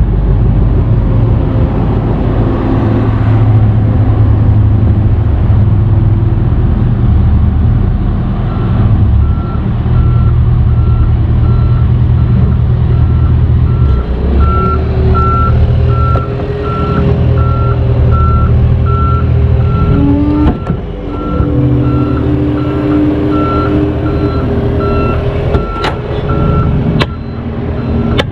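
Diesel tow truck running under a steady low drone, its backup alarm starting about eight seconds in and beeping at a regular pace. A couple of sharp metal clanks come near the end.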